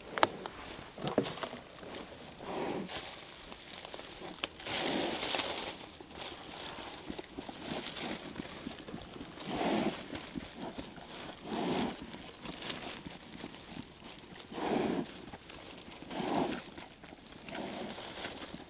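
Black bear snuffling with her nose in the forest-floor litter as she feeds on springtails (snowfleas), a short noisy breath every second or two. Small crackles of dry needles and leaves being nosed through come between the breaths.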